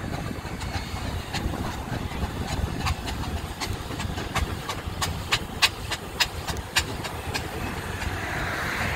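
A steam road engine running, with a low rumble and hiss under a regular metallic ticking of about three beats a second that is sharpest in the middle.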